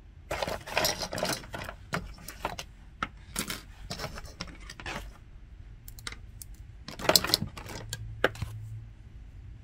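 Irregular metallic clicks and rattles of hand tools and small parts being handled, in clusters about half a second in and again around seven seconds in.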